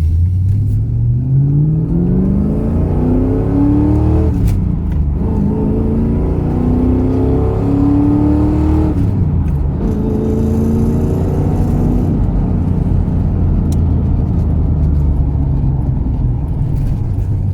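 Ford AU Falcon XR8's V8 engine accelerating through the gears of its five-speed manual gearbox. It pulls up through one gear, drops in pitch at a shift about four seconds in, pulls up again, shifts once more about nine seconds in, then settles to a steady cruise.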